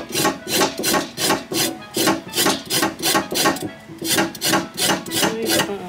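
Something rubbed back and forth in quick, even rasping strokes, about four a second, in a kitchen.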